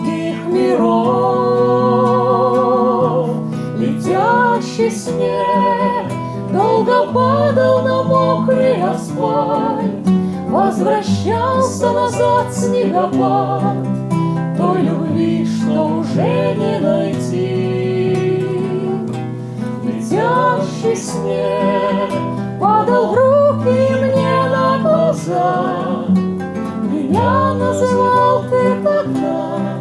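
A song performed with a singing voice, held notes wavering with vibrato, over acoustic guitar accompaniment.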